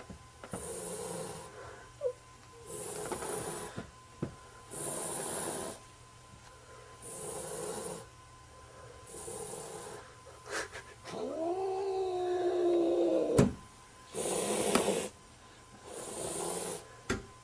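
A cornered black cat hissing again and again, one hiss about every two seconds, with one long low yowl that rises and then falls about two-thirds of the way through and cuts off with a sharp click.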